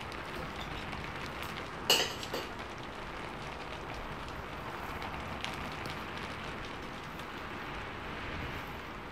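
Steady hiss of heavy rain. About two seconds in, a plastic serving ladle is set down in a metal pan with a sharp clink, followed by a smaller tap.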